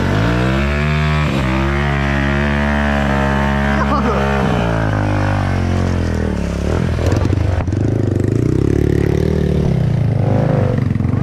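Small dirt bike engine revving up and held at a steady higher pitch for a few seconds. About halfway through it drops back to a lower, pulsing idle.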